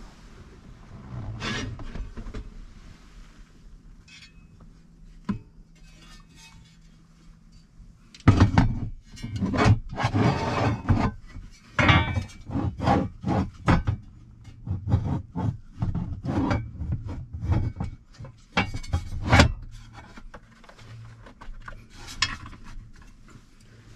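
Steel console-safe sidewall panel being worked into place over its mounting studs inside a truck's centre console: scraping, knocks and clinks of metal against metal and plastic, sparse at first and busy from about a third of the way in until near the end.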